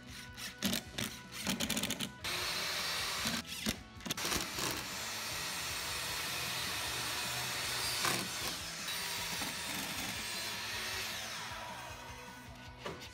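Corded impact driver driving screws into wooden chair rails: a few clicks, a short run, then a long continuous run of rapid hammering that fades and winds down with a falling whine near the end.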